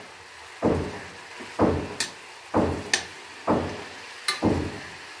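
Builders hammering, a heavy knock about once a second in a steady rhythm, five blows in all.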